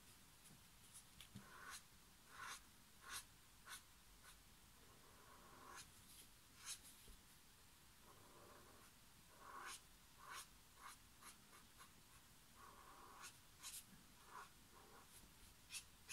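Faint scratchy strokes of an Ecoline brush pen's soft tip across cellulose watercolour paper, short strokes coming in quick runs with pauses between them.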